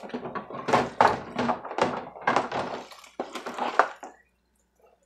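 Dishes being hand-washed in a stainless steel sink of soapy water: a quick, uneven run of thunks, knocks and scrubbing scrapes that stops about four seconds in.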